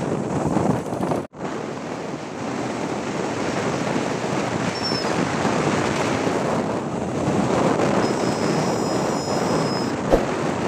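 Steady wind rush and road noise from riding a motorcycle, cut off for a moment about a second in, with a short knock near the end.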